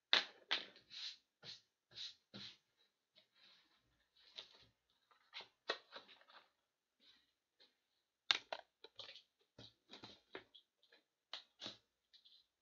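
Cardboard boxes being handled and worked with a utility knife, heard as irregular scrapes, rustles and sharp clicks. The sounds come in two bouts, the second starting about eight seconds in.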